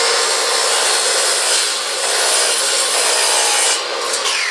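Electric miter saw cutting through a wooden board, its blade apparently a little dull. Near the end the cut finishes and the motor winds down with a falling whine.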